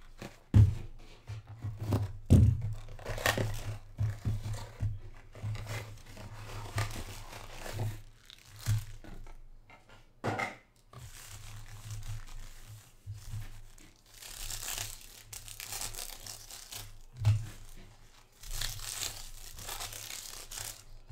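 Foil-wrapped trading card packs being handled on a table: several sharp knocks as packs and box are set down, then foil wrappers crinkling and tearing open in the later part.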